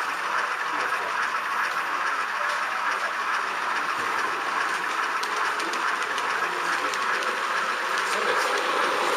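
H0 model train running on the track close by: a steady whirring rolling noise, with light clicks over the rail joints in the second half.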